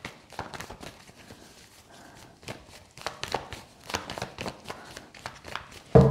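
A deck of tarot cards being shuffled by hand, the cards slapping and sliding against each other in many small irregular clicks. A single louder thump near the end.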